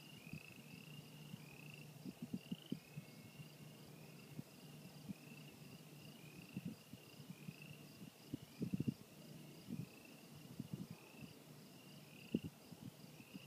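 Night chorus of frogs and crickets: a steady series of short, slightly rising chirps, a little under two a second. Several sudden gusts of wind buffet the microphone, the loudest sounds here.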